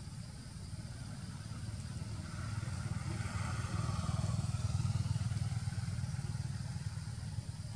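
Low engine rumble of a passing motor vehicle, swelling to its loudest about halfway through and then fading.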